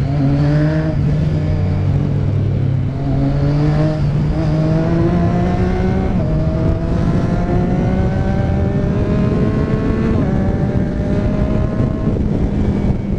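Motorcycle engine accelerating up through the gears: its pitch climbs steadily, drops sharply at three upshifts and climbs again, with no break in the sound at the shifts, typical of quickshifter upshifts without the clutch. Wind and road rumble run underneath.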